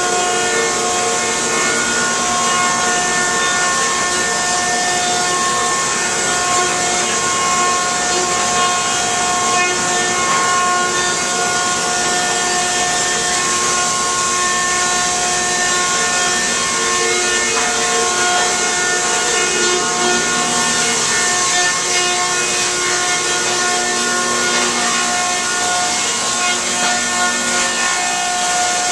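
A 1976 Newman M68 electric planer running steadily, with boards feeding through: a continuous loud machine drone made of several steady whining tones over a strong high hiss.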